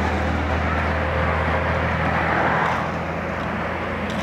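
Highway traffic with trucks driving by beneath, a steady low engine drone under tyre noise. The noise swells about two seconds in as a vehicle passes below, then eases off.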